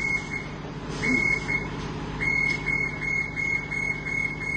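Warning beeper of a bus's wheelchair lift, sounding rapid high beeps about four a second with two short pauses, over the low hum of the idling bus engine.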